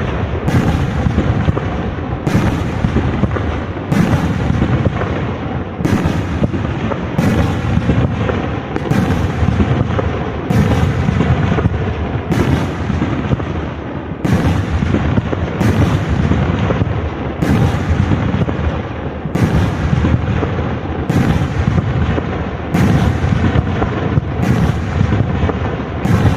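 3-inch professional aerial firework shells going off in rapid succession: sharp bangs about one to two a second, their echoes running together into a continuous low din.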